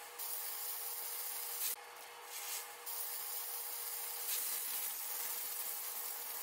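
Tortilla and chicken filling sizzling in a hot nonstick skillet: a steady hiss that falls back briefly about two seconds in, over a faint steady hum.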